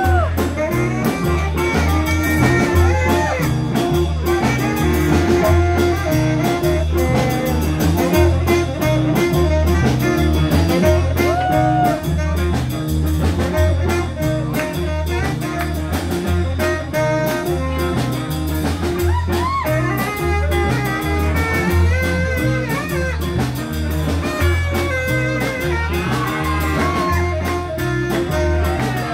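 A small blues combo playing: saxophone, guitar, upright double bass and drum kit. A steady, pulsing bass line and drums carry the beat while bending melodic lines run over it.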